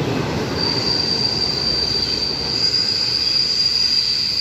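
Freight train of white tank wagons rolling steadily across a steel bridge. About half a second in, a steady high-pitched wheel squeal sets in and holds over the rolling noise.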